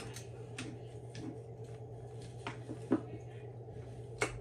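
A few sparse light metallic clicks and knocks of transmission gear stacks and shift forks being handled and lowered into the case, over a steady low hum.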